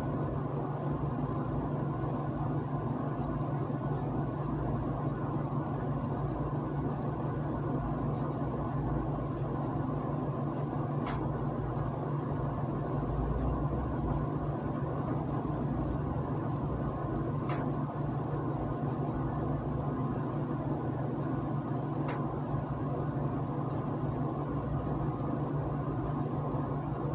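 Steady low hum with hiss, broken only by three faint clicks spread through the middle.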